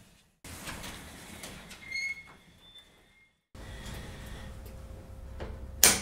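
Sectional garage door being raised by hand along its metal tracks, with a short high squeak about two seconds in and a sharp metal clank near the end. The sound drops to dead silence twice, briefly.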